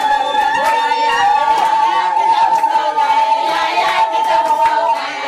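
A group sings unaccompanied, with a woman's voice holding one long high note over the others, and hand claps keep time.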